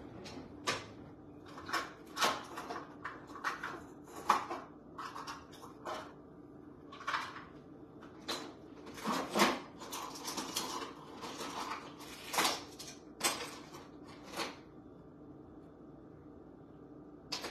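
Kitchen drawers and cupboards being opened and shut and cutlery rattling while someone rummages for a tablespoon: a string of knocks, clicks and clinks about every second, with a quiet stretch near the end, over a faint steady hum.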